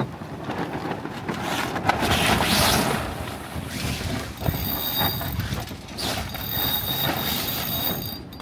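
Wind and water noise aboard a small sailboat under way, rising and falling in gusts. About halfway through, a faint, steady high ringing tone joins it.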